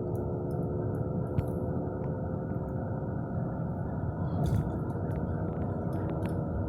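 A car driving at speed, heard from inside the cabin: steady tyre and road rumble with a humming drone over it, the roaring typical of a worn front wheel bearing.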